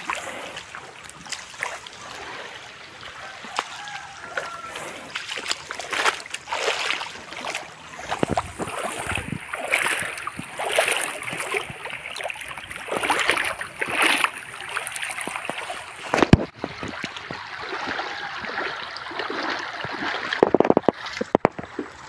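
Shallow muddy creek running, with repeated splashing of water and one sharp knock a little past the middle.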